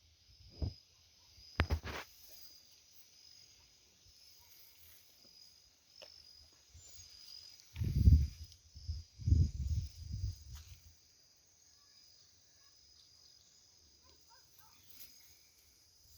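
An insect trilling steadily at a high pitch, with a few low thumps over it, the loudest a cluster about eight to ten seconds in.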